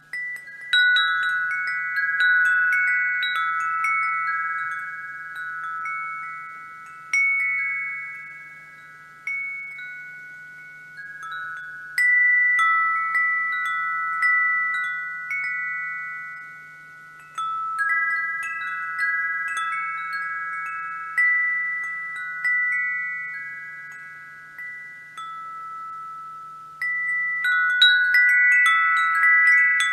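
Wind chimes ringing, struck in irregular clusters so that several bright tones overlap and slowly die away, with a busier flurry of strikes near the end.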